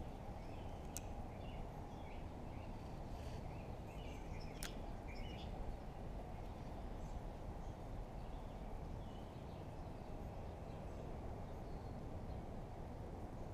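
Open-air lakeside ambience: a steady low rumble with faint bird chirps now and then, mostly in the first half. Two sharp clicks, one about a second in and one near five seconds.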